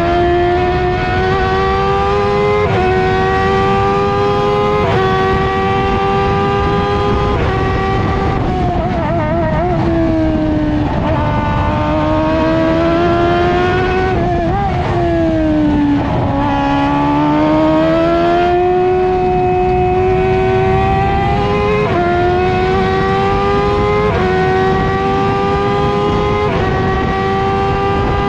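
Onboard sound of an F1000 open-wheel race car's 1000 cc motorcycle engine at full effort on a qualifying lap. The engine note climbs and steps through gear changes, then drops with wavering blips partway through as it slows for corners, before climbing through the gears again.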